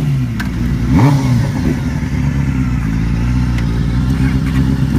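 Two sport motorcycle engines revving, with a quick rise and fall in pitch about a second in, then held at steady high revs as the bikes pull on the tow straps.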